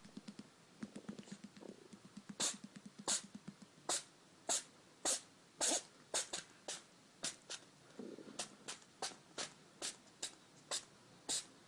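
A small animal sneezing again and again, short sharp sneezes coming about two a second.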